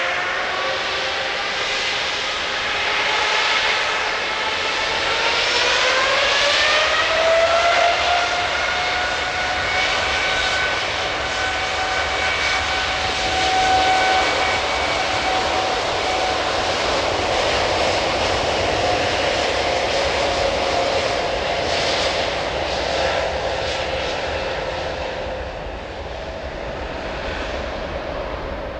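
Boeing 787's Rolls-Royce Trent 1000 turbofans spooling up to takeoff thrust: a whine that rises in pitch over the first seven seconds or so, then holds steady under the engine noise as the jet starts its takeoff roll, fading a little near the end.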